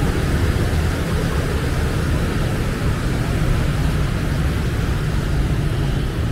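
Steady low rumble of street traffic with a noisy hiss above it, holding level throughout.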